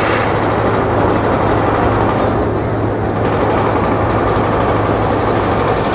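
Steady vehicle engine rumble: a constant low hum under an even rushing noise.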